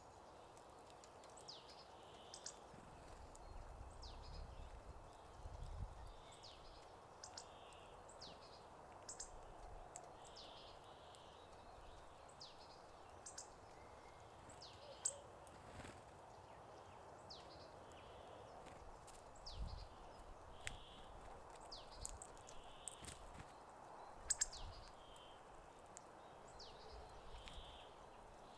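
Hawfinches calling: short, sharp, high ticks scattered irregularly throughout, over a faint steady hiss.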